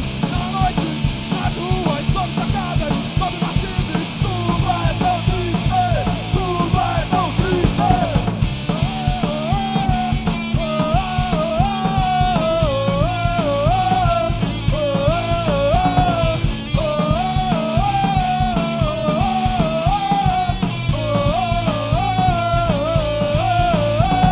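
Live punk hardcore band playing with distorted electric guitars, bass and drum kit. From about nine seconds in, a lead line repeats a short wavering phrase over the band.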